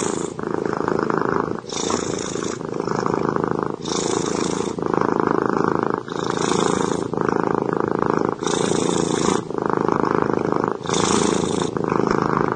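Cat purring close and loud, in even pulses about once a second.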